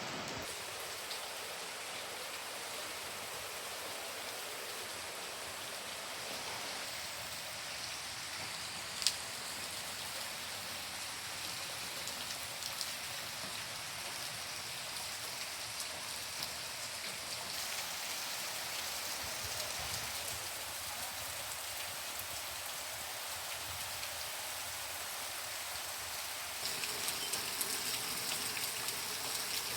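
Steady monsoon rain falling in an even hiss. A single sharp click comes about a third of the way through, and the rain grows heavier near the end.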